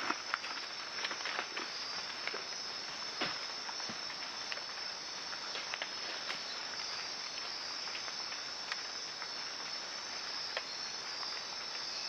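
Steady high-pitched chorus of night insects in tropical rainforest. In the first few seconds there are a few light footfalls and rustles in dry leaf litter.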